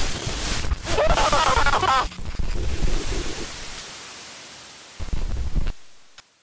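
A loud rushing noise, with a wavering, warbling tone about a second in. The noise fades away, then a short burst of noise near the end cuts off abruptly.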